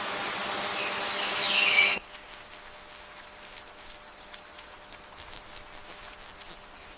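Nature ambience: a hissing wash with high, falling chirps for about two seconds, which cuts off suddenly. Then comes a quiet stretch with scattered faint ticks and clicks.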